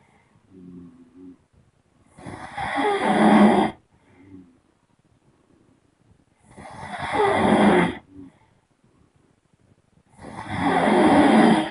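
A person snoring: three long, loud snores about four seconds apart, each followed by a short, much softer breath sound.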